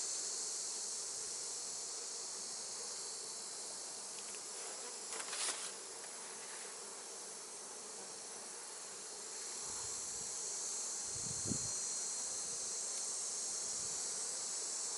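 Honeybee colony buzzing steadily around an opened hive during a frame inspection, with a brief knock about five seconds in.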